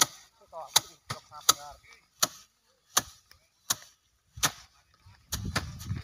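Bundles of harvested rice stalks beaten by hand against a wooden slatted threshing rack and a box to knock the grain loose: a run of sharp whacks, one about every three-quarters of a second.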